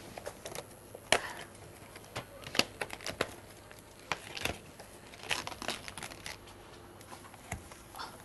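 Handling noises: irregular knocks, clicks and crinkly rustling as small objects and packaging are picked up and set down at a café counter, the sharpest knock about a second in.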